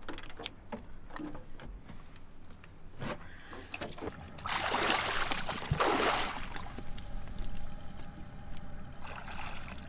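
A snorkeler in wetsuit and fins going into the water off a boat: light knocks and clicks of gear on the deck, then a splash and water rushing for about two seconds about halfway through.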